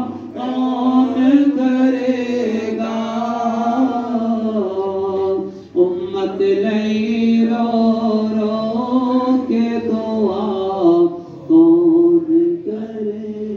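A man reciting a naat, an Urdu devotional poem in praise of the Prophet, unaccompanied into a handheld microphone, in long held, wavering melodic notes. The voice breaks off briefly about six and again about eleven seconds in.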